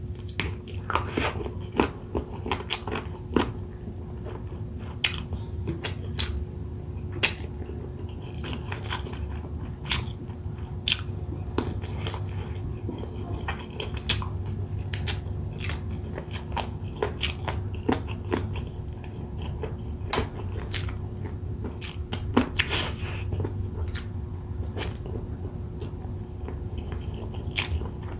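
Close-miked eating: chewing and biting grilled chicken and rice, with frequent irregular wet clicks and occasional crunches, over a steady low hum.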